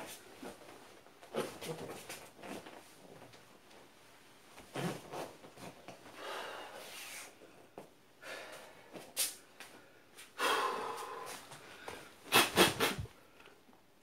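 A man's forceful breaths and mouth sounds made with qigong martial-arts movements: about half a dozen short, noisy exhalations, the loudest a quick cluster near the end.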